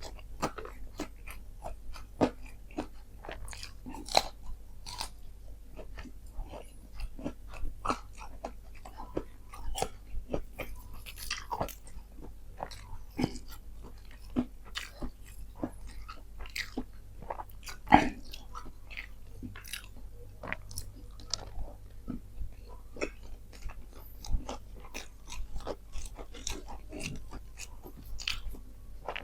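Close-miked chewing and biting of crispy fried chicken and rice: irregular wet crunches and crackles, with one sharp, loud crunch about eighteen seconds in.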